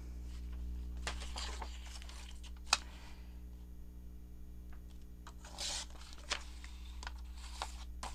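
Paper being handled in journal-making: rustling and crinkling with a few short sharp taps, the sharpest about two and a half seconds in, over a low steady hum.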